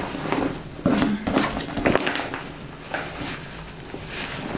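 Sports bag being handled and turned over close to the microphone: fabric rustling with a series of irregular soft knocks and scrapes.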